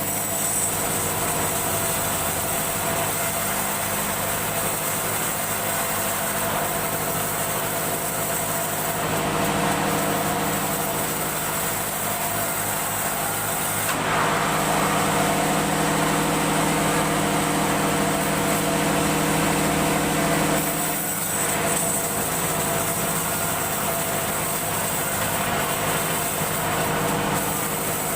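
Woodworking machine running steadily, its sound shifting several times.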